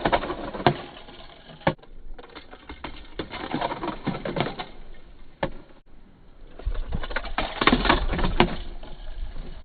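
Small hard objects being handled: irregular clicks, taps and rattles, with a busier run of clattering near the end.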